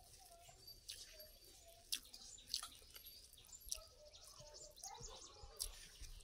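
Faint, sharp wet clicks and squishes of eating by hand: fingers mashing soft idli into mutton gravy on a banana leaf, and chewing. Birds chirp in the background.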